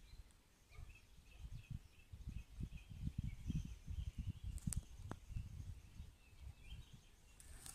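Quiet outdoor ambience: irregular low rumbling on the microphone, with faint high chirps repeating about twice a second through most of the stretch.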